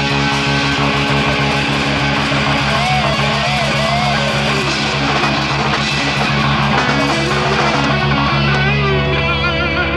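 Instrumental rock backing track with no vocals, played by a band on electric guitars over an even beat. A guitar line with wavering, bent notes rises over the held chords about three seconds in and again near the end.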